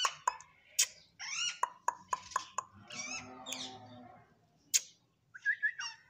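Rose-ringed parakeets calling: several bursts of short, harsh squawks and chatter that bend up and down in pitch, with sharp clicks in between. There is a brief pause near the end before more calls.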